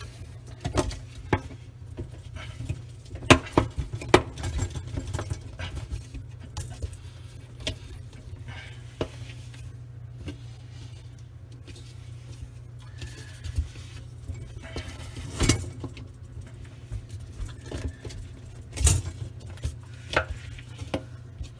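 Scattered clicks and knocks of a dishwasher spray arm motor assembly being pressed down and worked into its seat, over a steady low hum. The sharpest knocks come about three to four seconds in, and twice more in the second half.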